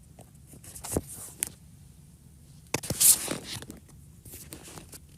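Small handling noises as a phone and a doorbell unit are held up to scan a QR code: scattered light taps and clicks, with a brief rustle about three seconds in.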